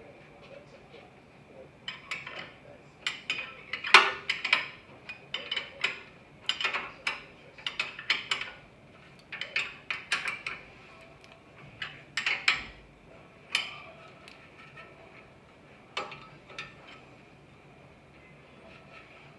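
Metal tools and parts clinking and tapping during front hub and wheel bearing work: irregular sharp clinks that start about two seconds in and die away a few seconds before the end. A faint steady high tone sits underneath throughout.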